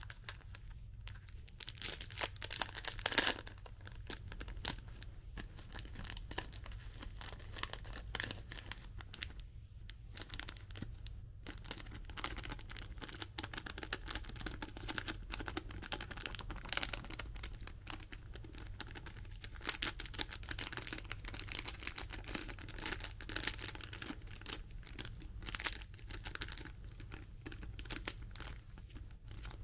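Thin plastic food sachets and wrappers crinkling and being torn open by hand in irregular bursts. The loudest tearing comes about two to three seconds in.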